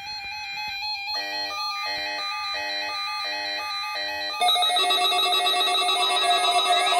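Electronic alert tones of a weather radio test signal: a steady tone, then about five evenly repeating chime-like beeps, then a sudden louder alarm tone about four and a half seconds in, with its pitch sweeping up and down near the end.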